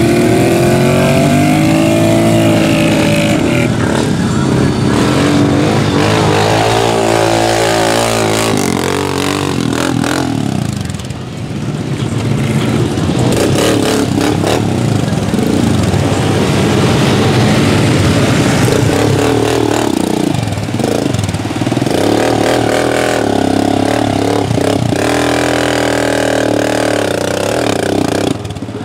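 ATV engines revving hard in deep mud, the pitch climbing and dropping again and again as the quads spin their tyres and push through.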